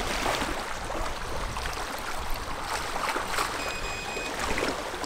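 Lake water splashing and lapping at the bank, with wind rumbling on the microphone.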